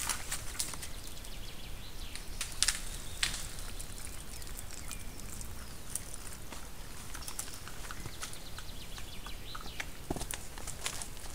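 Scattered clicks and knocks of red deer hooves stepping through wet forest litter and twigs, a few at a time at irregular moments, over a steady background hiss.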